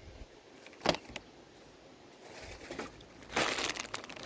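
Plastic packaging crinkling and crackling as items are handled, starting up about three seconds in, after a single sharp click about a second in.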